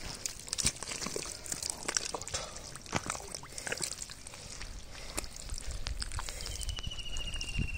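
A hand and arm digging through soft wet pond mud: irregular squelching, sucking and sloshing with many small wet smacks and plops.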